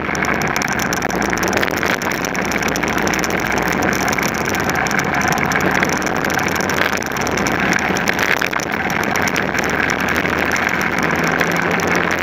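Racing kart engine running at speed, heard from a camera mounted on the kart, under a steady rush of wind and road noise.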